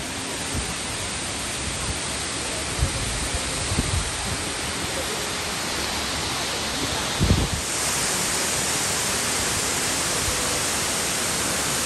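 Waterfall rushing, a steady full hiss of falling water that grows brighter and a little louder about eight seconds in. A few short low thumps hit the microphone, the loudest about seven seconds in.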